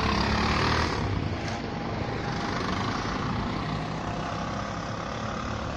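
Small engine of a three-wheeled mototaxi (auto-rickshaw) running as it drives past and away. It is loudest about a second in and then slowly fades.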